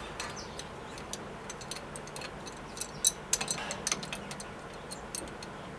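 Light metallic clicks and taps of wrenches being fitted onto the brass gas-line fitting of a grill, scattered through, with a quick cluster of louder clicks about three seconds in.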